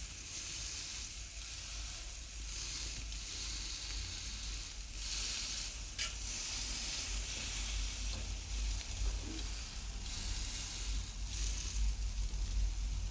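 Thick ribeye steak sizzling steadily on a hot cast-iron grill over wood embers during the final sear, with the hiss swelling and easing every second or two. One sharp click about six seconds in.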